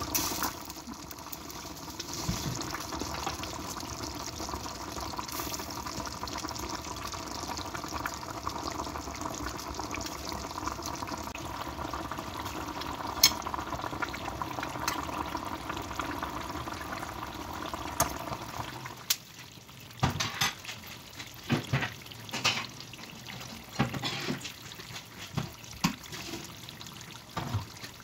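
Thick chicken curry sauce simmering in a frying pan. For about the first two-thirds a steady rushing hiss with a faint hum runs under it. After that the hiss drops away, leaving irregular pops of the sauce bubbling.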